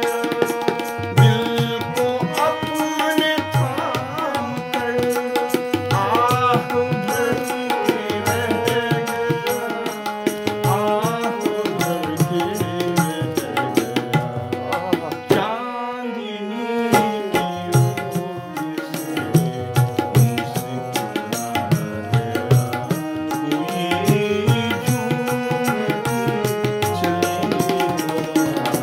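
A man singing a slow Hindi film song to his own electronic keyboard accompaniment, over a steady tabla rhythm.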